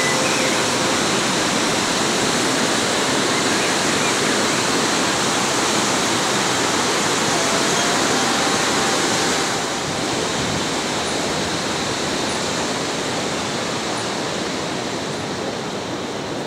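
Steady rush of fast-flowing mountain water. About ten seconds in it drops a little in level and loses some of its hiss.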